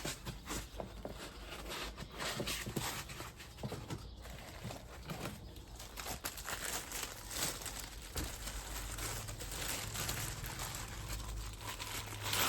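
Crinkling packaging with small clicks and knocks as a new turbo core and seals are unpacked and handled.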